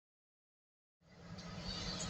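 Silence, then about a second in a steady low rumble with a hiss over it fades in.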